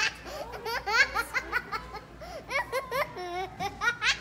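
People laughing in quick bursts of short giggles.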